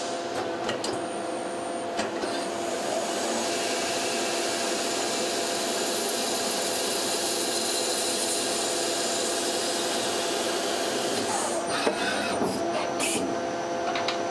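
Miyano BNA-42MSY CNC turning center machining brass parts: a steady hum of spindle and drive motors, with several held tones over a hiss of cutting, and a few sharp clicks of tool and turret movements.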